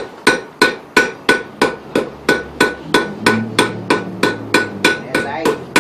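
Blacksmith's hammer striking hot, orange-glowing steel on an anvil in a steady rhythm, about three blows a second, each with a short metallic ring.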